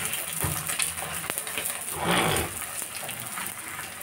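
An egg frying on a flat griddle (tawa), sizzling with scattered small crackles and pops. A brief louder burst of noise comes about two seconds in.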